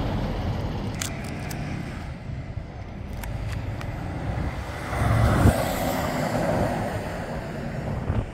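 Scania V8 truck engine idling with a steady low rumble, swelling louder briefly about five seconds in.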